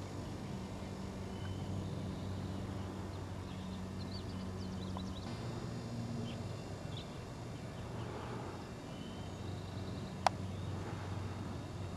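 Outdoor ambience: a low, steady hum with a few faint bird chirps, and one sharp click about ten seconds in.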